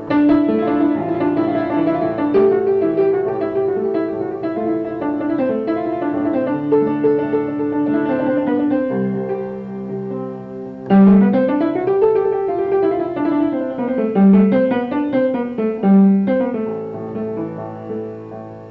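Solo upright piano, tuned to the microtonal intervals of Turkish makams, playing a melody over chords. About eleven seconds in a loud low note opens a run that climbs and falls back, with further strong accents a few seconds later, and the playing fades near the end.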